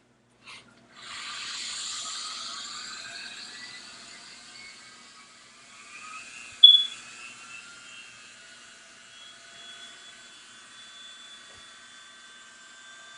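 Dremel rotary tool with an engraver's bit running with a high-pitched whir, starting about a second in and slowly fading. One short, sharp squeal about two-thirds of the way through is the loudest moment.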